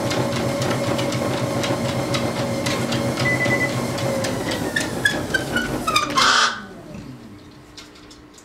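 Motorised treadmill running with a steady hum, a dog's paws landing on the moving belt in a regular patter. About four seconds in the motor slows in a falling whine, and after a brief loud noise just past six seconds the treadmill stops, leaving only a faint hum.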